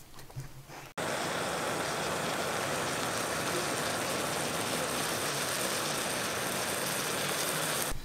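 Chopped vegetables sizzling as they sauté in a steel pan on a gas canister stove: a steady frying hiss that starts abruptly about a second in.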